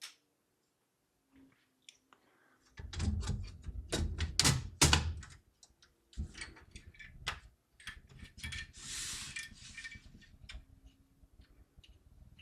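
Top panel being fitted onto a Thermaltake TR100 small-form-factor PC case: a run of knocks, clicks and handling thuds, heaviest about three to five seconds in, with a brief scrape just past the middle.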